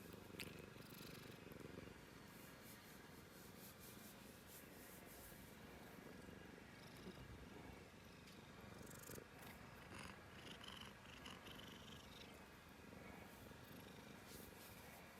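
Domestic cat purring steadily and faintly, with a few soft rustles.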